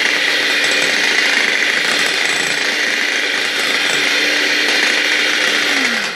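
Electric hand mixer running steadily at speed, its beaters whisking a cream mixture in a glass bowl. Near the end it is switched off and the motor winds down with a falling pitch.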